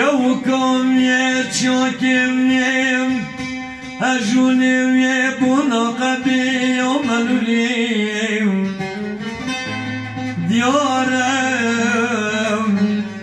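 A man singing a Kurdish song into a microphone in long, gliding, ornamented phrases, accompanied by a plucked long-necked saz. A steady low drone note joins about ten seconds in.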